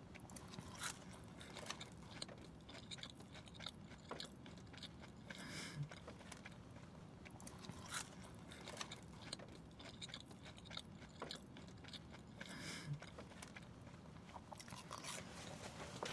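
Onion rings being bitten and chewed close to the microphone: faint, irregular crisp crunches and chewing.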